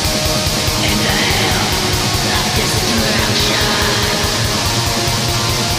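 Black metal music: distorted guitars over very fast, dense drumming.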